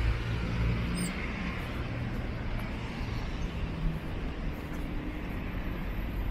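A car's engine hum on the street alongside, fading over the first second or two and leaving a steady hum of distant road traffic.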